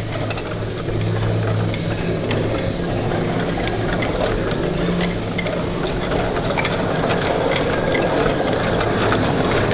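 Close-miked upright piano with its front off, played for its mechanism rather than its notes: a dense, noisy clatter of keys and hammers, with many small clicks that grow thicker in the second half, over a steady low hum.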